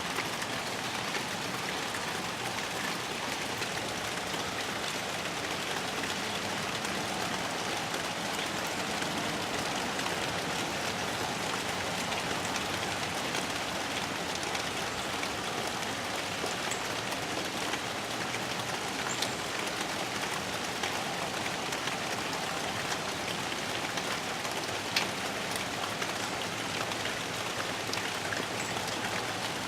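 Steady rain falling, with a few sharper ticks of drops now and then, one louder tick about 25 seconds in.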